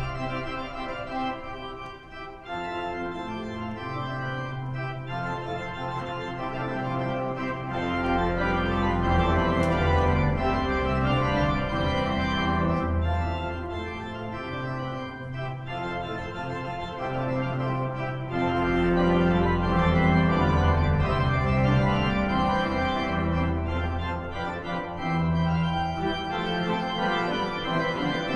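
Pipe organ playing a hymn in full, sustained chords. Deep bass notes come in about a third of the way through and again about two-thirds through.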